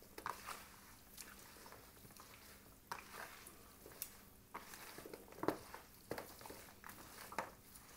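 Bare hand mixing raw chicken pieces with curry seasoning, making irregular soft wet squelches and slaps, the loudest about five and a half seconds in.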